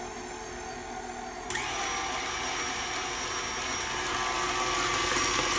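KitchenAid stand mixer motor running, its beater mixing thick muffin batter in the steel bowl. The sound jumps up sharply about a second and a half in, a steady motor hum with a high whine, and grows louder a couple of seconds later.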